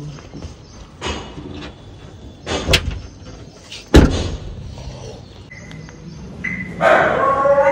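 A hatchback's tailgate slammed shut about four seconds in: a single sharp bang, the loudest sound here, after a softer knock. Near the end a slatted metal gate is opened with a drawn-out squeak.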